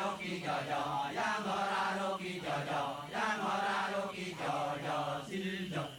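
Chanting voices, as in a Balinese kecak (monkey dance) chorus, holding long notes that step up and down in pitch, in phrases of about a second with short breaks between them.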